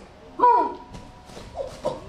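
A short high-pitched voice call that rises and then falls, about half a second in, followed by a few fainter, briefer voice sounds near the end.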